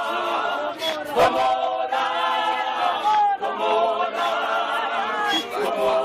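Male street choir singing a cappella in close multi-part harmony, with a sharp hit about a second in.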